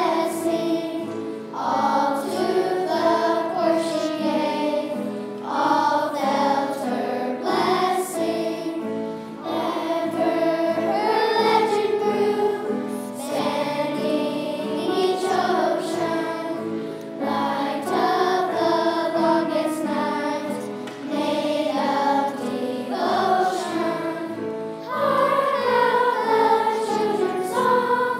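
Children's choir singing, in phrases of a few seconds each with brief breaths between them.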